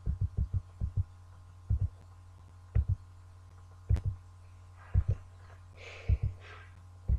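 Dull low thumps from a computer mouse being worked while scrolling through code: a quick run of them in the first second, then single knocks or pairs about once a second, over a steady low hum.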